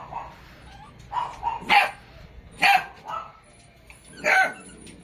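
A dog barking: a few short, sharp barks about a second apart.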